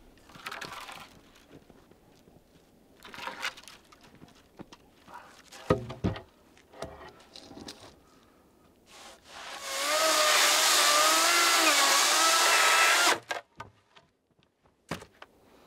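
A power tool runs for about three seconds in the second half, its pitch wavering, then cuts off suddenly. Scattered knocks and handling sounds come before and after it.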